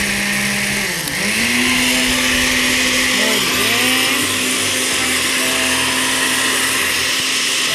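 Electric countertop blender running, puréeing a watery mix of tomato, cilantro and parsley into a green sauce. The motor hums steadily, its pitch dipping and recovering about a second in and wobbling briefly again a little later as it works through the blend.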